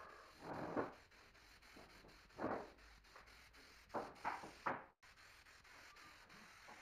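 Air spray gun hissing in five short bursts: one about half a second in, one at about two and a half seconds, then three quick ones around four seconds.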